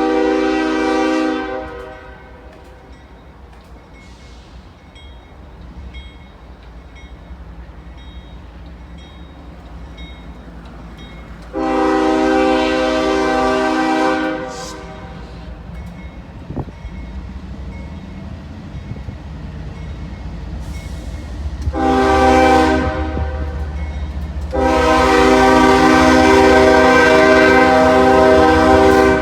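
Diesel locomotive air horn sounding the long-long-short-long grade-crossing signal: a blast of about two seconds at the start, another long one about twelve seconds in, a short one just after twenty seconds, and a final long blast that runs on. A low engine rumble grows under the later blasts as the train approaches.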